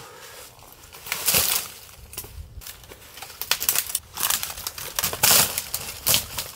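Dry dead beech branches snapping and crunching as they are broken by hand and stamped underfoot for firewood: irregular sharp cracks and brushy crunches, busiest in the second half.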